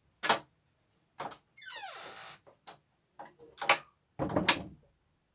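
Clicks and knocks from a wooden plank door and its iron latch, with a creak sliding down in pitch about two seconds in and a heavy low thump near the end.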